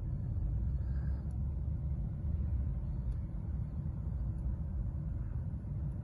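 A steady low rumble, with a couple of faint light clicks about one and three seconds in.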